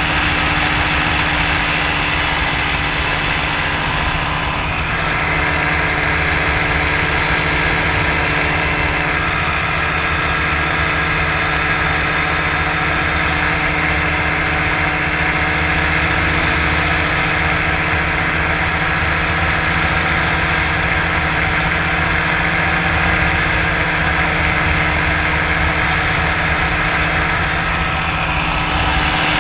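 Engine of an open ultralight trike running steadily in flight, mixed with a rushing hiss of airflow. The hiss gets stronger about five seconds in and eases back near the end.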